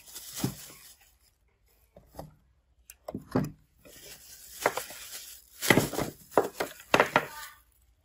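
Hard plastic robot vacuum parts, the body, dust bin and brushes of an old iRobot Roomba, knocking down onto a wooden tabletop in a string of clunks that come thicker in the second half, while a thin plastic bag crinkles.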